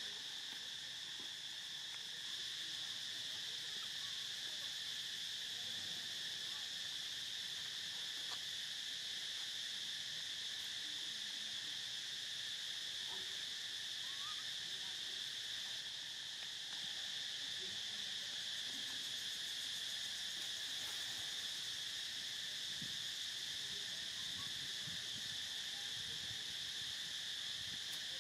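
Steady chorus of insects, a continuous high-pitched drone that holds the same pitch without a break.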